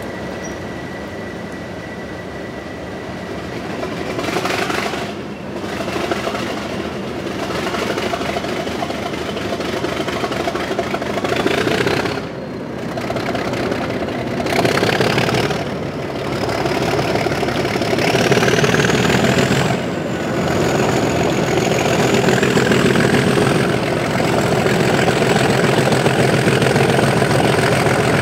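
Class 37 diesel locomotive's English Electric V12 engine working hard to pull away. The engine note builds in several steps with short dips between them, and a whistle rises steadily in pitch throughout as the turbochargers spool up.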